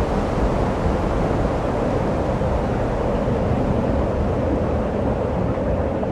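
A steady low rumbling noise with no distinct events, its weight in the low and middle range.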